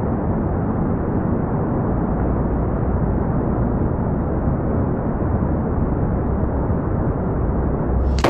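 Thunder rumbling, a long steady low roll after a lightning strike. Just before the end it gives way suddenly to a brighter, hissier sound.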